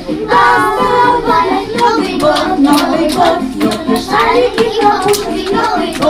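A group of children singing a song over backing music, with rhythmic hand claps keeping time from about two seconds in.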